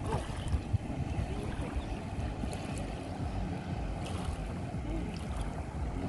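Wind on the microphone and river water lapping, under the steady drone of a jet ski's engine out on the water.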